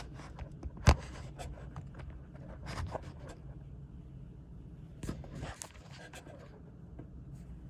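Handling noises: a sharp click about a second in, then a few softer knocks and rustles, with a faint steady hum underneath.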